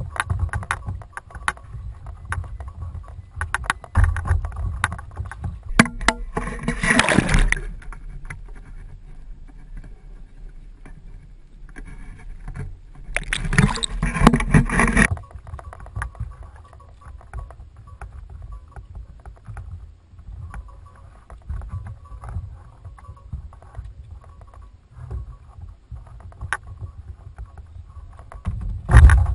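Sea water lapping and splashing against a fishing kayak's hull, with low wind rumble on the microphone, small knocks and clicks, and two louder rushes of noise about seven and fourteen seconds in.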